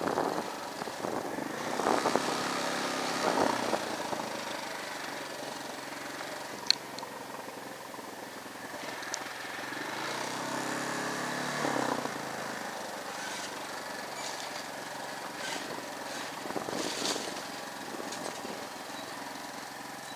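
Motorcycle engine running while riding, its note rising and falling with the throttle, with a single sharp click about seven seconds in.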